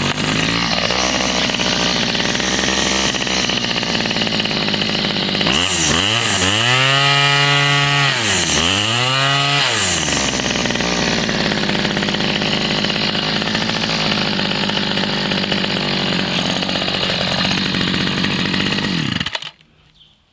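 Homelite 30cc two-stroke string trimmer engine running after a carburetor rebuild, running pretty good. It is revved up and back down twice, about six and eight seconds in, then runs steadily until it cuts off near the end.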